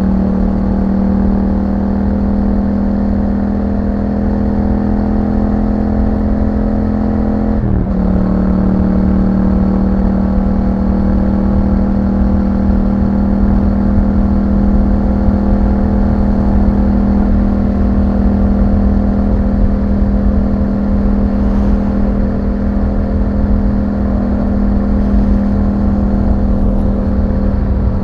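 2021 Yamaha MT-07's 689 cc parallel-twin engine through an Akrapovic exhaust, running at a steady pitch as the bike rides, with a brief break in the engine note about eight seconds in.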